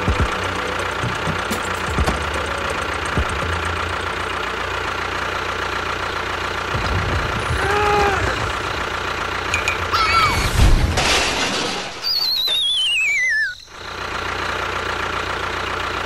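Tractor engine sound effect running steadily under cartoon sound effects: a few short swooping tones near the middle, a loud crash about eleven seconds in, then a falling, wavering whistle that cuts off suddenly.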